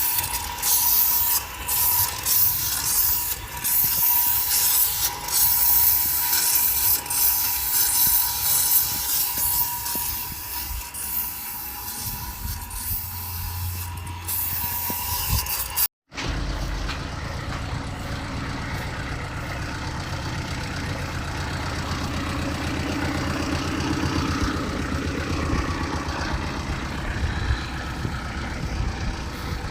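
For about the first half, a power tool with a steady whine and a loud hissing rasp, like grinding or sanding. An abrupt cut follows, then a car engine running evenly.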